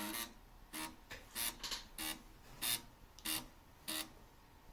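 Two 3.5-inch floppy drives driven by an Arduino, their head stepper motors buzzing out a song as musical notes: about seven short, staccato buzzy notes with brief gaps between them.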